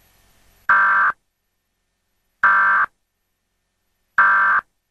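Emergency Alert System end-of-message code, pitched down: three short buzzy bursts of digital data tones, each about half a second long and evenly spaced, with silence between them. The bursts mark the end of the alert.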